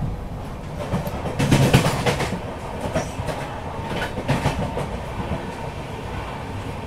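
Tejas Rajdhani Express coach running at speed, heard from inside: a steady rumble of wheels on rail, with a cluster of clattering wheel clacks about a second and a half in and another shorter one around four seconds.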